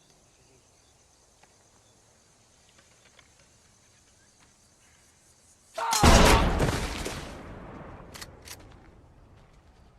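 Faint steady insect drone, then a single loud blunderbuss shotgun blast about six seconds in, its echo fading over about two seconds, followed by two short clicks.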